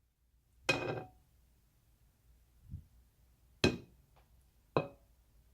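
Kitchen cookware being handled: three separate sharp clinks and knocks of metal pots and utensils with quiet gaps between. The first rings on briefly.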